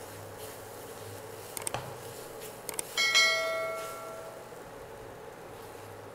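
A few quick clicks, then about three seconds in a single bell-like chime that rings out and fades over about a second and a half: the click-and-bell sound effect of a subscribe-button animation. Beneath it, a faint steady hum.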